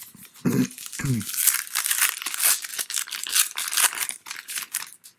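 Foil wrapper of a trading-card pack crinkling and tearing as it is opened, a dense run of crackles lasting about four seconds. Two short bits of voice come in the first second or so.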